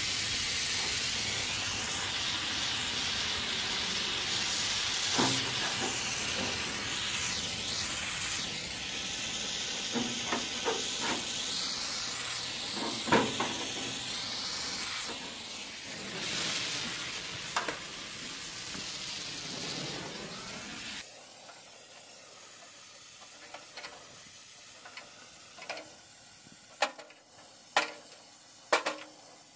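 Propane-oxygen heating torch hissing steadily on a radiator's soldered seam, with scattered clicks of a pry tool on the sheet metal. About two-thirds of the way through, the hiss cuts off suddenly, and near the end come several sharp metallic clicks.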